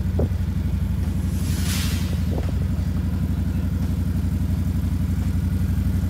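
Can-Am ATV engine idling steadily with a fast, even pulse. A brief hiss comes about two seconds in.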